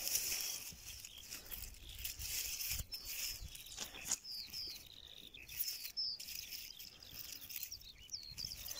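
Small birds chirping with short, scattered curved notes, over a soft rustling as a hand brushes through young cereal leaves.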